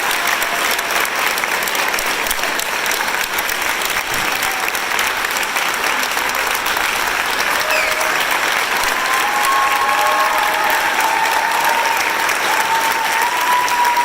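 Large audience applauding steadily after a speech, with a few voices calling out above the clapping in the second half.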